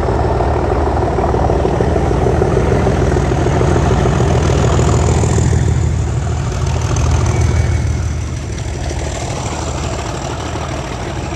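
An engine running steadily: a low rumble that eases a little in the last few seconds.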